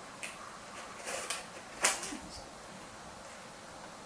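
A small box being handled and opened by hand: a few brief rustles and one sharp click about two seconds in.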